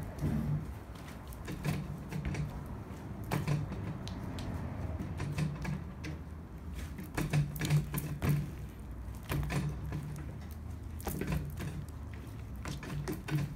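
Hands kneading, pressing and stretching a large batch of sticky glue slime on a tabletop: many irregular wet clicks and snaps as the slime is squeezed and pulled apart.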